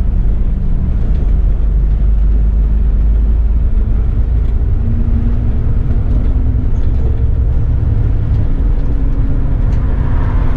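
Bus engine and drivetrain heard from the driver's cab while driving: a steady low rumble, with a tone in the engine note that comes in and shifts in pitch from about the middle onward.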